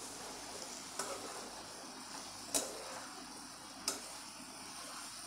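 A perforated metal spatula stirring potato and capsicum sabzi in a frying pan, clinking against the pan three times, about a second and a half apart, over a faint steady sizzle.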